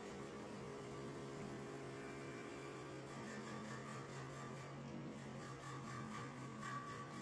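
Two-spindle CNC wood turning lathe running, a steady motor hum under the hiss of the cutters turning two wooden spindles, with a higher whine joining about three seconds in.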